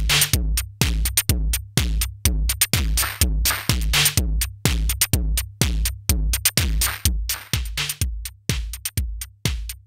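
Electronic drum-machine beat with synth, played through a Eurorack analog mixer, compressor and distortion module: a steady kick about twice a second with sharp hi-hat ticks between.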